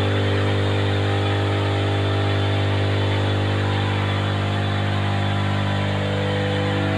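Workshop machinery running with a steady, loud mechanical hum made of several fixed tones.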